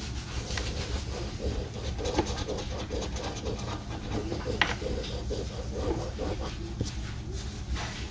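A large metal coin scratching the coating off a poker scratch-off lottery ticket in short repeated strokes, over a steady low hum.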